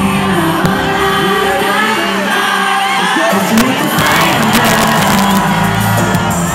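Boy-group pop song performed live over a concert sound system: male vocals over a backing track, with the audience shouting and cheering along.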